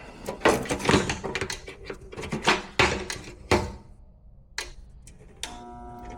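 Clicking and rattling from a furnace control-board wiring plug being handled and reseated, then a click and the furnace's inducer motor starting up with a steady, rising hum. It is the sign that the board now calls for heat once the loose plug makes contact.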